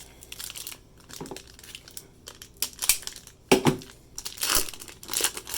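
Foil wrappers of Panini Playoff football card packs crinkling and crumpling in hand, in irregular bursts, with louder crinkles about three and a half seconds in and near the end.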